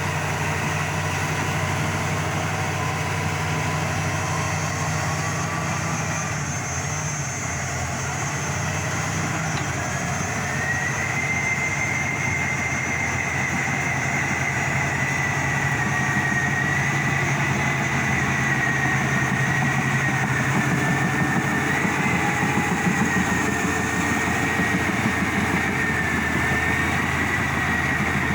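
Heavy diesel machinery running steadily at a road repair site, its engine note low and even, with a high whine joining about ten seconds in and holding as the machine works.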